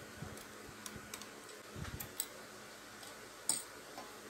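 Faint scattered clicks and ticks of hands handling wires and parts inside an open power amplifier, with a sharper click about three and a half seconds in.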